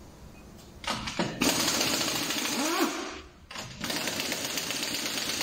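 Impact wrench hammering as it loosens the wheel bolts on the front wheel, in two long bursts with a short pause between.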